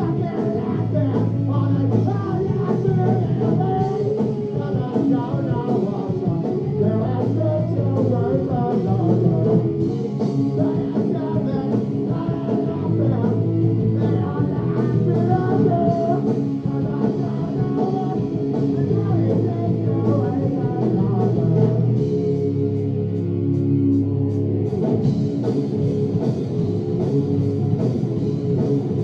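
Live rock band playing: a male singer over electric guitar, bass guitar and drums.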